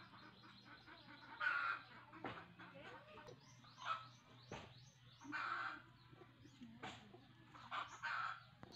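Outdoor birds calling: a short call repeated about five times, every second or two, with fainter chirps between.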